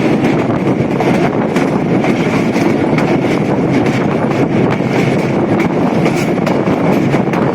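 Train running along the track: a steady loud rumble of wheels on rail with many quick clicks, and a faint steady high whine above it.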